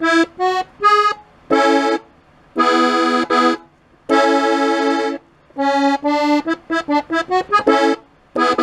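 Diatonic button accordion in E-A-D tuning playing a slow phrase of separate short notes, then held chords around the middle and a quick run of notes near the end. It is the song's closing phrase, played with the bellows pushing in.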